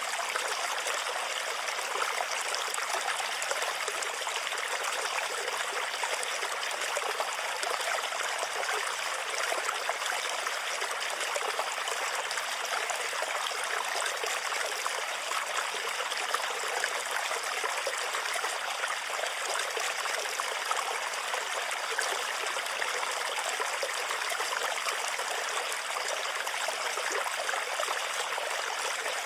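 Water running and trickling steadily in a small stream, an even splashing with no deep rumble.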